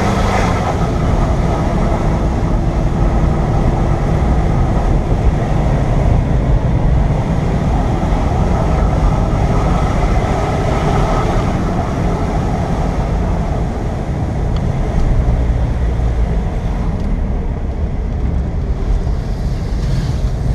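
Car engine running steadily under way, with tyre and wind noise, heard from inside the car.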